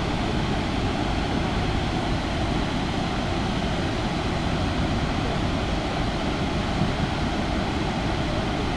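Steady roar of a large waterfall: rushing, falling water as one constant, even noise.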